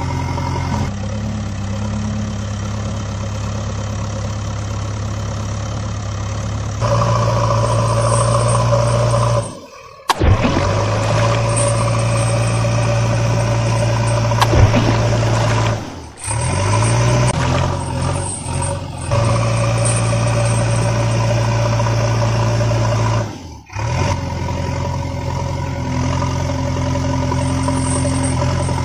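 Engine sound effect of a heavy vehicle running steadily, a low hum with overtones. It switches abruptly to another engine clip several times and cuts out briefly three times.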